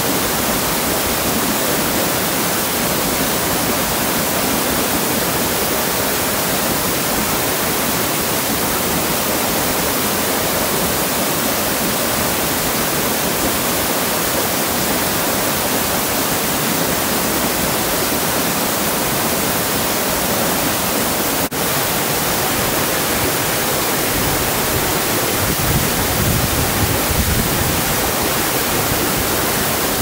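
Kotte Falls, a narrow forest waterfall, pouring steadily onto rocks into its plunge pool: a dense, continuous rush of falling water, with one brief dropout about two-thirds of the way in.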